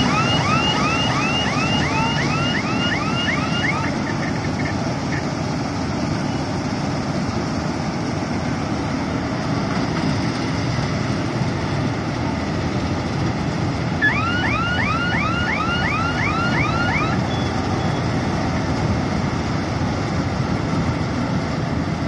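Satnam 952 Crop Tiger combine harvester running steadily under load as it cuts and threshes the crop. Twice a run of quick repeated chirping tones, about three a second, sounds over the engine: once in the first few seconds and again in the back half.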